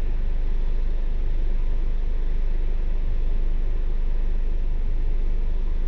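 Bus engine idling with the bus standing still, heard from inside the upper deck: a steady low hum with a noisy hiss over it.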